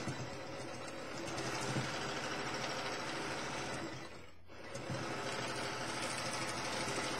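Sewing machine running at speed during free-motion quilting, the needle stitching rapidly through the quilt layers. It slows to a brief near-stop about four seconds in, then runs fast again.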